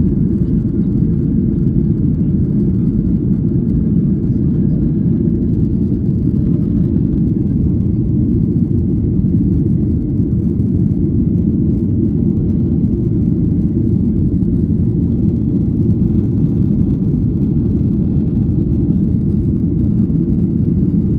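Steady low rumble of a Boeing 737-800's CFM56-7B turbofan engines and rushing air, heard inside the cabin during the climb after takeoff.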